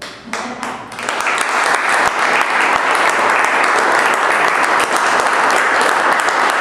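Audience applause after the music stops: a few scattered claps that build within about a second into steady clapping.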